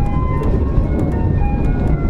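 Electronic in-car chime playing a simple melody of short single notes over the low rumble of a KiHa 47 diesel railcar running, signalling the approach to a station.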